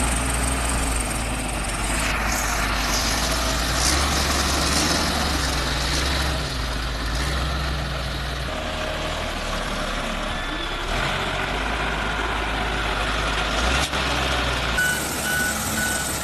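Bulldozer diesel engine running steadily as the machine is moved into position, with abrupt shifts in its low hum. A short high beep repeats several times near the end.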